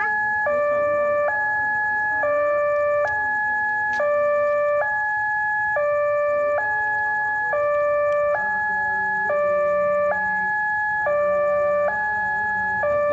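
Railway level-crossing warning alarm: an electronic two-tone signal switching between a higher and a lower note about every second, repeating steadily, warning that a train is approaching.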